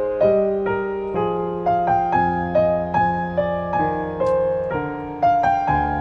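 Background piano music: a slow melody of single notes, about two a second, over held low notes.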